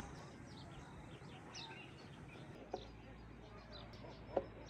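Faint chirping of small birds: scattered short high calls over a quiet background, with a couple of soft clicks in the second half.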